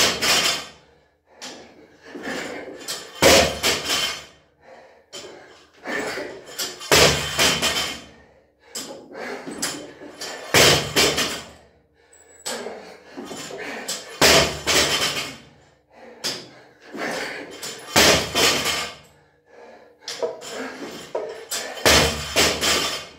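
A 50 kg barbell with rubber bumper plates dropped onto a rubber floor mat after each clean, about every three and a half seconds: a heavy thud each time, followed by a few smaller knocks as the bar bounces and settles.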